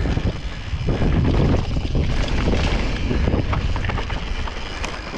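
Wind buffeting an action camera's microphone while a mountain bike rides fast over a dirt forest trail, with tyre rumble and scattered clicks and rattles from the bike. The noise swells at the start and eases a little near the end.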